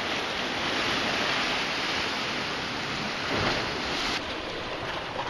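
Sea waves washing and foaming against the foot of a rocky shore in a steady rushing wash. It swells a little past three seconds in and drops suddenly in level about four seconds in.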